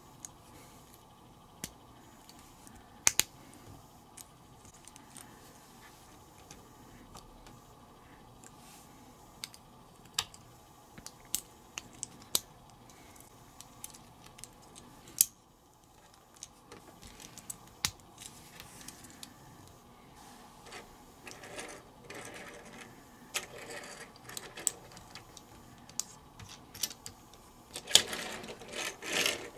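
Small plastic toy building bricks clicking and snapping together as they are assembled by hand, heard as sharp scattered clicks. Toward the end the clicking grows denser, and it is loudest and busiest near the end as the finished toy is handled on a wooden tabletop.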